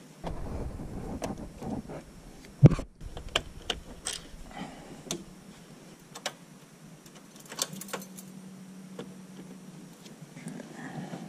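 Hands working on plastic dash trim and wiring connectors, making clicks, knocks and rustling, with one sharp knock about two and a half seconds in. A low steady hum sounds for about two seconds about three quarters of the way through.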